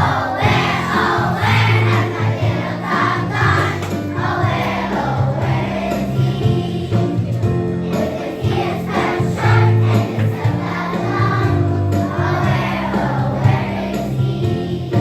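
A group of voices singing a song over backing music with sustained bass notes.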